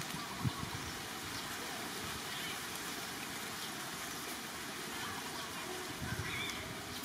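Steady background hiss with a soft low thump about half a second in, and a few faint short high chirps in the middle and near the end.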